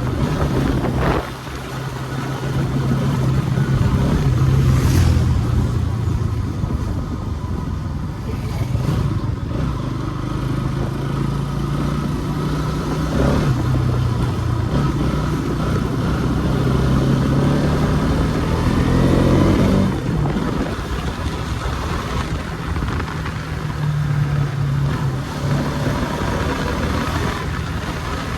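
Bajaj Pulsar NS200 BS6 motorcycle's single-cylinder engine running under way, with a short dip in level about a second in. About twenty seconds in, the engine note climbs for a few seconds and then drops off suddenly.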